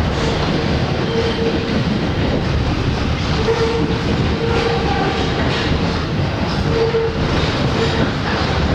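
R62 subway car running on the track: a steady, loud rumble of wheels on rails, with a tone that comes and goes several times.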